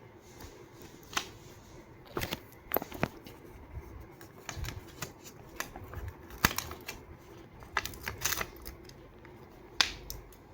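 Paper being handled at close range: irregular crisp clicks and short rustles, some sharper than others.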